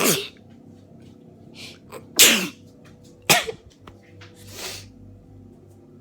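A rapid sneezing fit from a person with a head cold: three loud sneezes in quick succession, one at the start, one about two seconds in and one about a second after that, each falling in pitch. Quick, breathy intakes of air come between them.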